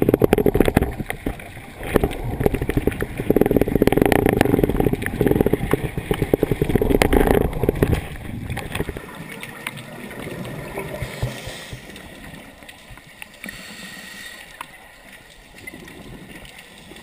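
Scuba regulator exhaust bubbles heard underwater: loud bubbling and crackling in rounds of a second or two, one diver exhalation after another. About eight seconds in it drops to a much quieter hiss.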